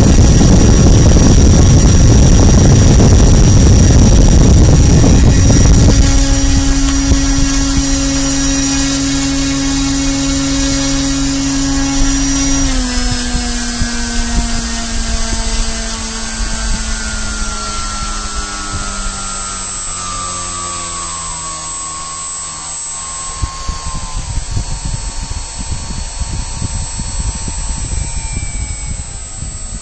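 Leopard brushless electric motor spinning a propeller on a test bench. For the first six seconds it is a loud rush of air, then a steady motor whine. From about halfway the whine steps down in pitch as the throttle and power are brought down, then holds at a lower speed.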